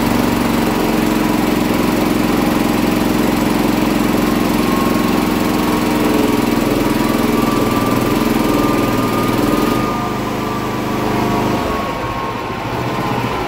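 Westinghouse J34 turbojet being spun over by a hydraulic starter on its first test, without fuel, over the steady running of the small gasoline engine that drives the hydraulic pump. The turbine's whine rises slowly in pitch as it spools toward about 1,000 to 1,500 RPM. Near the end the engine note drops away and the whine sinks as the turbine coasts down.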